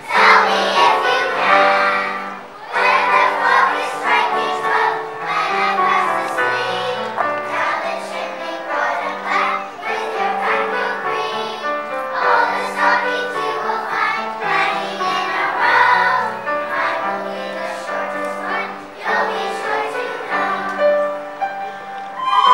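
Young children's choir singing a song together over an instrumental accompaniment that holds steady low notes beneath the voices.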